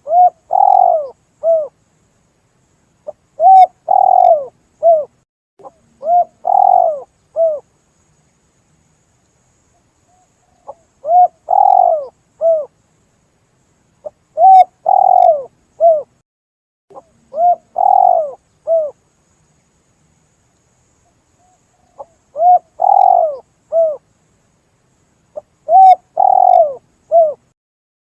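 Spotted dove (tekukur) cooing, a lure call for doves: about eight phrases, each of two to four coos, repeated every few seconds with dead silence between.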